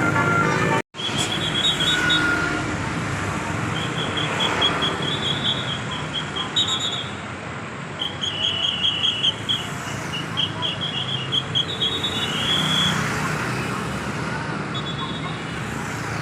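Roadside traffic noise with runs of short, fast, high-pitched chirps or beeps repeating through most of it.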